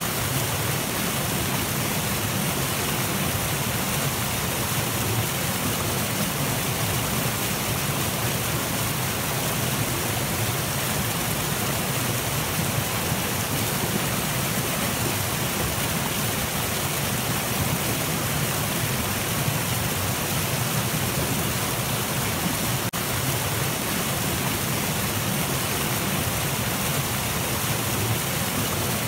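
Shallow creek rushing over rocks and through small rapids: a steady, even rush of flowing water.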